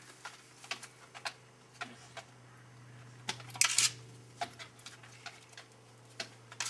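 Scattered light clicks and taps over a low steady hum, with one louder brief rustle about three and a half seconds in.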